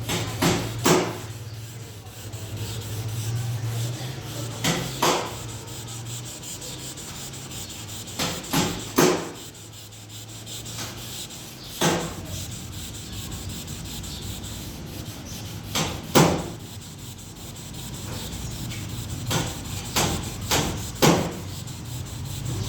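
Sandpaper rubbed by hand over a car's painted body panel to sand out scratches. It comes in separate scraping strokes, often in pairs, every few seconds, over a low steady hum.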